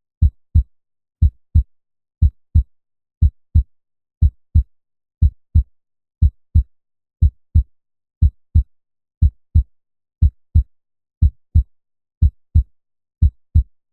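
Human heartbeat sound effect: a steady lub-dub, two low thumps close together, repeating once a second (60 beats per minute).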